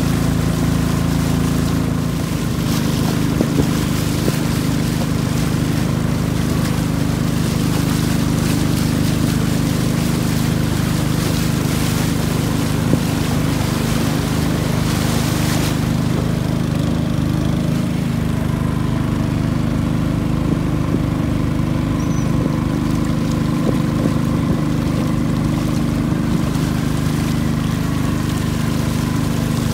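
A long-tail boat's engine, which drives a propeller on a long shaft, running steadily at cruising speed, heard from aboard. Rushing, splashing water is heard over it, and the hiss drops away sharply about halfway through.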